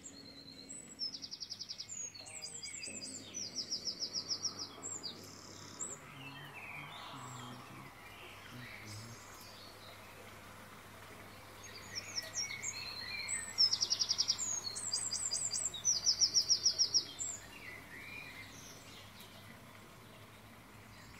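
Songbird chirping and singing fast, high-pitched trills, in two similar bouts about ten seconds apart, over a faint steady background hiss.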